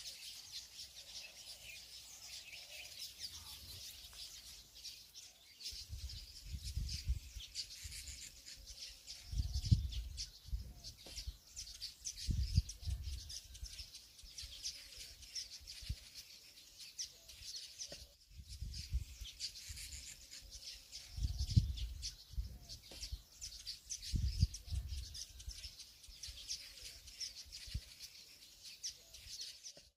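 Birds chirping steadily in the background, with bunches of low thumps and rumbles coming and going through the middle.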